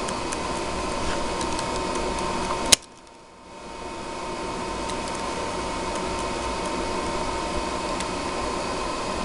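Steady room hum with one sharp snip about three seconds in, as the ends of the Cat 5 cable's twisted-pair wires are trimmed even with cutters, plus a few faint ticks of the wires being handled.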